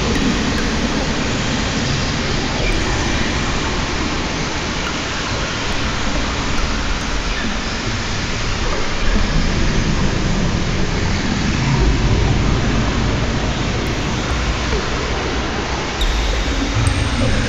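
Dense, steady wash of electronic noise from oscillator-based electronics played live, with a low rumble that swells about halfway through and again near the end.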